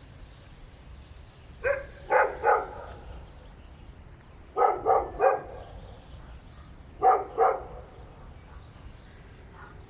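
Dog barking in short bouts of two or three barks, a bout about every two and a half seconds.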